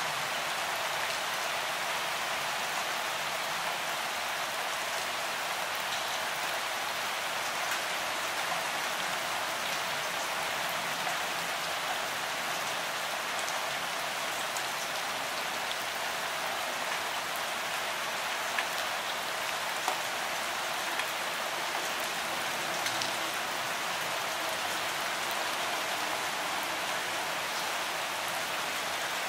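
Steady rain falling, an even constant hiss with a few slightly louder drop ticks now and then.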